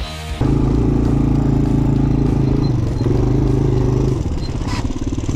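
Motorcycle engine running steadily, then dropping about four seconds in to a lower, evenly pulsing idle.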